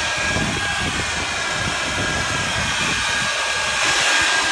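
Leaf blower running at full power, a steady engine whine over rushing air, blowing out a clothes dryer vent and hose. Near the end the low rumble drops away and the whine gets brighter.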